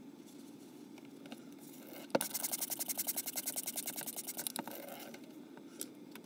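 Water poured from a bottle, glugging in a quick even run of about ten gulps a second for two and a half seconds, starting with a click about two seconds in.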